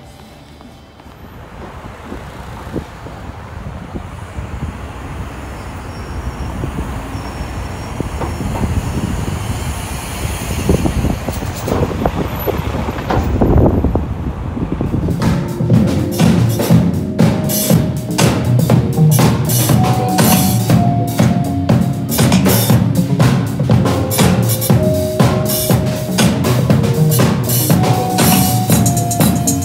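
A busker's hybrid drum kit, an acoustic bass drum and cymbal with electronic drum pads played through an amplifier, plays a fast, busy beat with a stepping melodic line. It comes in about halfway through. Before it, a steadily rising rumble of city street traffic.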